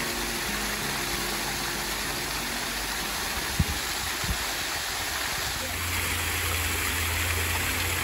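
Small waterfall cascading over rock ledges into a pool, giving a steady rushing splash. Two light knocks come a little after the middle.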